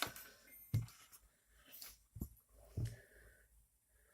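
A few light knocks and clicks of small printer parts being handled, with faint rustling between them.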